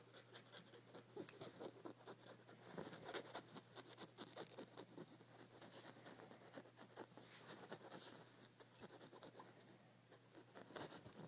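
Fingers scratching and tapping on a fabric comforter: faint, irregular scratching, with one sharper tick about a second in.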